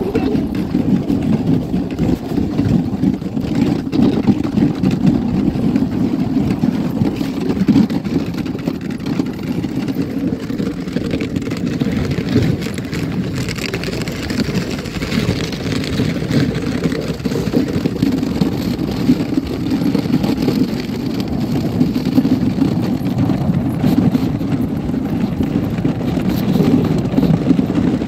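Steady rumble of a moving dog sled, its runners sliding over packed snow with wind buffeting the microphone, and a brighter hiss for a few seconds about halfway through.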